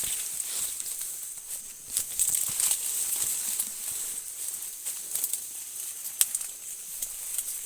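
Irregular crinkling and crackling rustle of dry corn leaves and stalks being pushed through, over a steady high-pitched drone of night insects.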